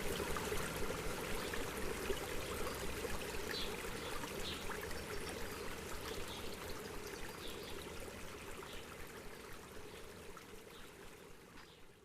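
A stream running steadily, with small birds giving short chirps now and then. The sound gradually fades away toward the end.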